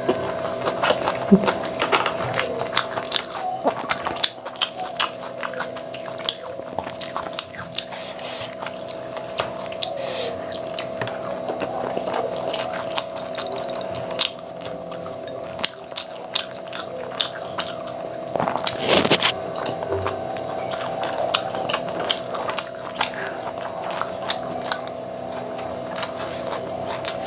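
Close-miked chewing and biting of rice and paneer curry eaten by hand, with raw onion slices: many small wet mouth clicks and crunches, over a steady hum. One louder sound comes about two-thirds of the way through.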